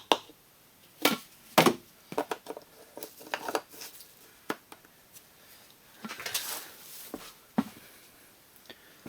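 Scattered light clicks, knocks and brief scrapes of objects being handled, with a short rustling scrape about six seconds in.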